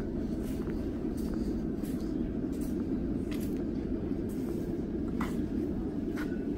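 Steady low hum of an underground light-rail station platform, with scattered faint clicks.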